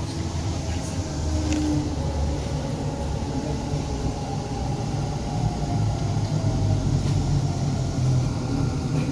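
Namma Metro train running along the track: a steady low rumble with faint whining tones that drift slowly in pitch.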